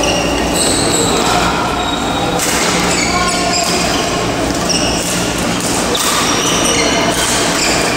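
Badminton shoes squeaking again and again on the court surface during a rally, short high squeals at varying pitches, over a steady low hum.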